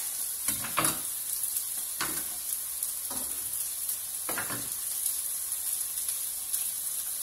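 Chicken and vegetables sizzling steadily in a frying pan on a gas hob, with a few short knocks of handling in between.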